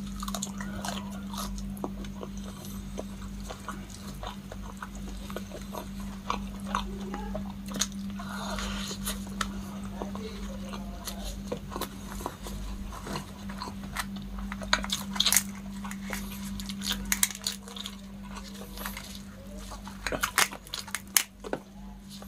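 Close-up eating of spicy butter-garlic giant freshwater prawns: biting and chewing with wet mouth smacks and many small clicks. Near the end comes a burst of sharper cracks as a prawn's shell is pulled apart. A steady low hum runs underneath.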